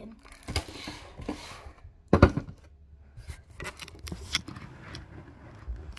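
Plastic toy packaging and a cardboard blister box handled close to the microphone: rustling and scraping, a loud knock about two seconds in, then scattered clicks and taps.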